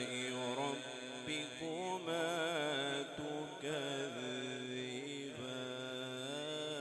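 A male Quran reciter (qari) chanting in melodic tajweed style into a handheld microphone: long, drawn-out notes with wavering, ornamented pitch, sung in several phrases with short breaks between them.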